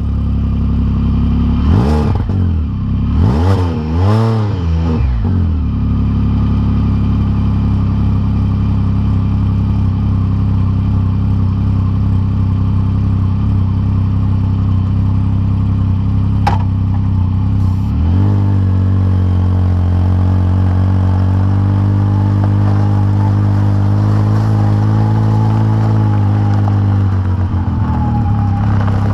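Can-Am Spyder RT Limited three-wheeler's Rotax 1330 three-cylinder engine running through an RLS Crusher series aftermarket exhaust: three quick revs rising and falling as it pulls away, then a steady note under way. The engine note rises about eighteen seconds in and eases off near the end.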